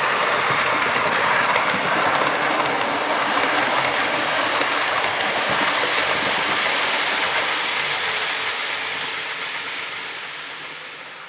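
00 gauge Hornby Railroad LNER P2 model locomotive and its coaches running along the layout's track: a steady running noise of wheels and motor on the rails. It fades away over the last three seconds as the train draws off.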